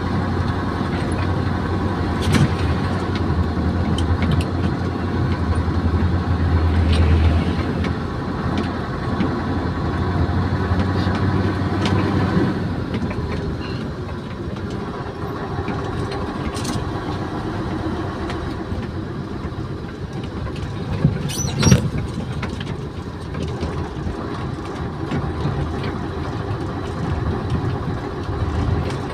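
Selfloader truck driving on a rough dirt road, heard from inside the cab: steady engine and road noise with loose cab parts rattling and clicking. A deeper rumble fills the first dozen seconds and then eases. A couple of sharp knocks come about two-thirds of the way in.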